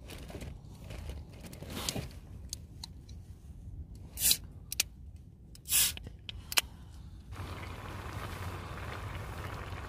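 Camp cooking handling: a few short scrapes and knocks of cookware and food being put into a pot, then a steady hiss that starts abruptly about seven seconds in.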